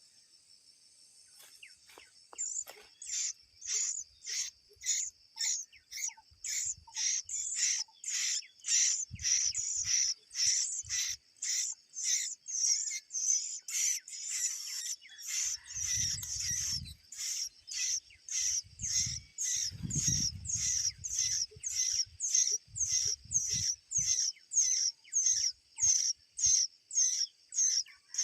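Bulbul chirping over and over in short, evenly spaced high chirps, about two a second, starting a couple of seconds in. A few brief low rumbles come near the middle.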